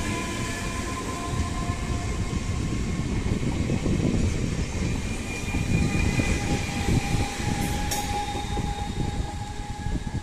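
A long passenger train passing close by at speed: a dense, continuous rumble and clatter of wheels on the rails, with a few thin steady tones riding above it.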